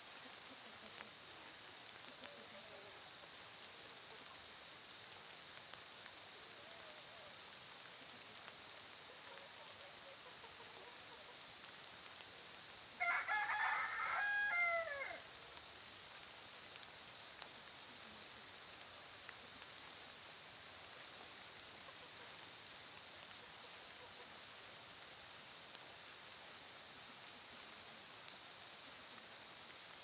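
A rooster crows once, a loud call of about two seconds roughly halfway through, falling in pitch at its end. Under it is a faint steady hiss.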